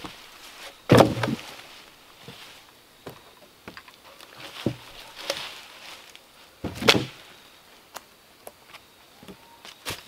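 Logs dropped onto a log pile: two heavy wooden thuds, about a second in and again near seven seconds, with lighter scattered knocks between.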